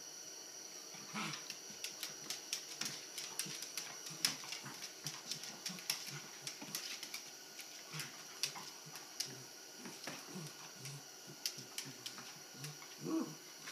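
Two small dogs playing on a hardwood floor: a rapid, irregular patter of claws clicking and skittering on the boards, with soft thumps of paws. One of the dogs gives a short vocal noise about a second in and again near the end.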